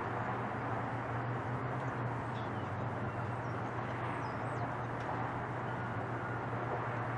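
Steady, even jet engine noise from a Boeing 747-8 freighter's four GEnx engines as it climbs away after takeoff, with a few faint bird chirps.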